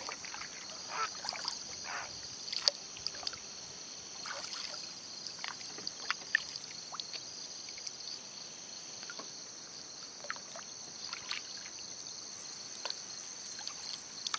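Kayak paddling: irregular small splashes, drips and light knocks of the paddle in calm water, over a steady high-pitched insect chorus.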